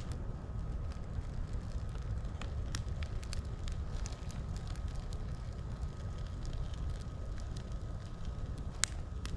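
Campfire crackling, with scattered sharp pops over a steady low rumble; the loudest pop comes near the end.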